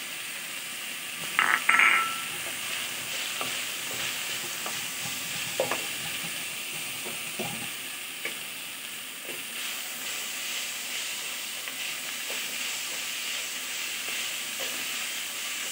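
Potatoes, jackfruit seeds, onions and fish head sizzling steadily in oil in a pan, stirred with a wooden spatula that scrapes and knocks against the pan. About two seconds in there are a few sharp clatters with a brief metallic ring.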